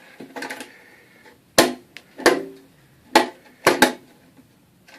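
Small metal lockbox being handled: about five sharp metallic knocks and clanks, some with a short ring.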